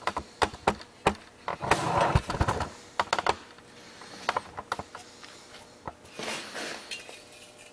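Thin sheet-metal mock-up adapter plate clinking and scraping against the rear of a VR6 engine as it is held up and shifted into place: a quick string of sharp clicks over the first few seconds, a longer scrape about two seconds in, and another scrape around six seconds in.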